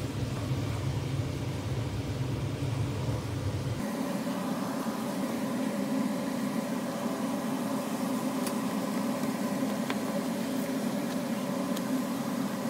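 Steady mechanical hum. About four seconds in, its deep low rumble gives way abruptly to a higher hum. A few faint clicks of a knife against the cutting board come later on.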